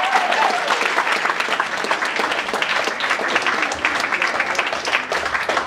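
Audience applauding steadily with dense clapping, and a shouted cheer at the start.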